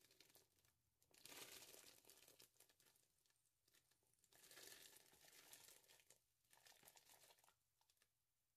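Faint rustling and soft splashing of hominy kernels sliding out of a plastic colander and dropping into a pot of broth, in two spells: one starting about a second in, another about halfway through.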